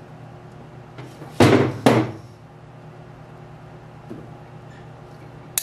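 Two loud clunks about half a second apart as the piston and rod are handled on the steel cart tray. Near the end comes a short sharp click as the wrist-pin circlip snaps into its groove in the piston.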